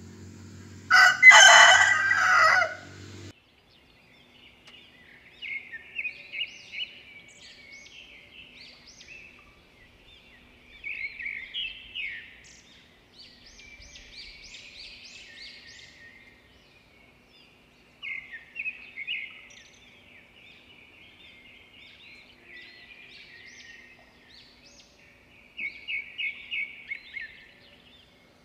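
A rooster crows once, loudly, about a second in. After it, small birds chirp in repeated short bursts of rapid high notes every few seconds.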